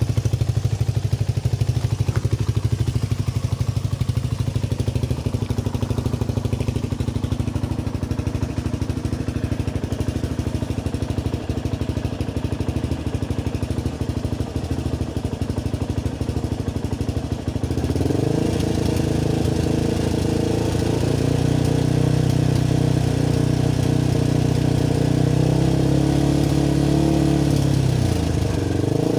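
Motorcycle engine breathing through a replica Akrapovic exhaust, idling steadily, then revved up about two thirds of the way through and held at a higher, steady rpm. The revving is a noise check against the LTO's 99-decibel limit, with the meter reading around 89 to 90.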